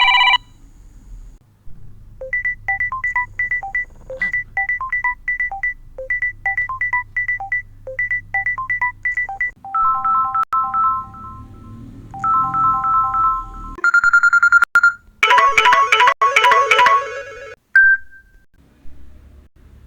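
Phone ringtones playing, clean electronic notes. A short quick melody repeats four times from about 2 s in. Around 10 s in it changes to two phrases of held chords, then around 14 s to a brighter held tone and a fast, busier run that stops near 17.5 s, followed by a single short note.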